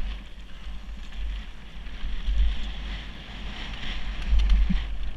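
Wind buffeting an action camera's microphone in swelling gusts, over the hiss and crunch of mountain bike tyres rolling down a wet, stony trail, with a few clicks of loose stones.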